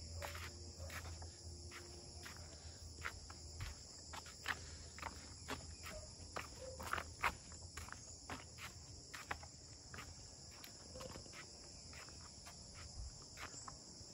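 Footsteps of a person walking on a concrete road, short steps at roughly two a second, over a steady high-pitched drone of insects.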